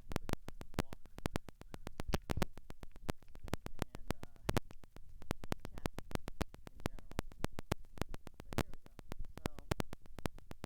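Rapid, irregular crackling clicks, several a second, with faint voice-like sound beneath them in places.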